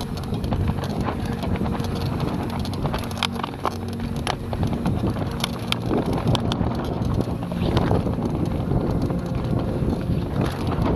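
Mountain bike descending a rough dirt trail at speed: tyres rumbling over the ground, the frame and chain rattling with sharp clicks and knocks from bumps, and wind buffeting the camera microphone.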